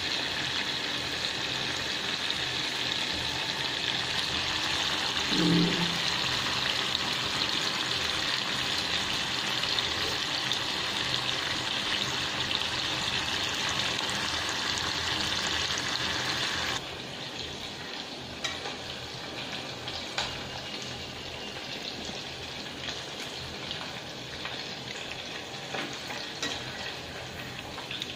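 Chicken liver deep-frying, submerged in hot oil: a steady sizzle that drops abruptly to a lower level about 17 seconds in. A few light clicks follow over the quieter frying.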